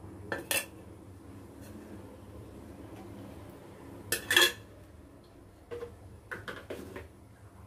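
Metal kitchen vessels clattering and clinking as they are handled and set down by the stove: a clatter about half a second in, a louder double clatter about four seconds in, and a few lighter clinks later, over a steady low hum.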